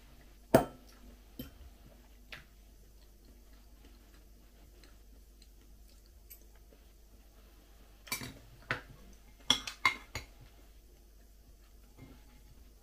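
Metal spoon and fork clinking against bowls while eating. One sharp clink comes about half a second in, two lighter ones follow over the next two seconds, then a quick run of clinks comes around eight to ten seconds in.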